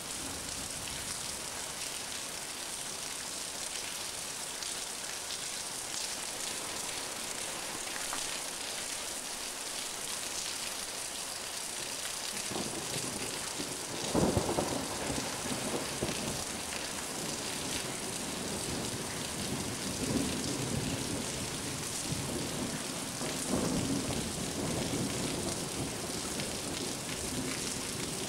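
Steady hiss of rain falling throughout. About halfway through, a long peal of thunder sets in; it is loudest at its onset and keeps rolling with further swells until the end.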